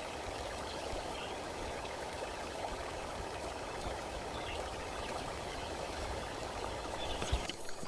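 Steady rushing noise of running water that cuts off suddenly near the end.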